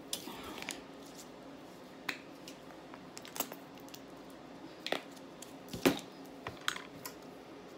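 A person eating, with scattered sharp mouth clicks and lip smacks as they chew, the loudest a little before six seconds in.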